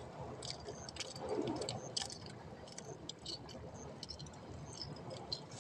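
Irregular small clicks and taps close by, over a low, steady rush of sea and wind.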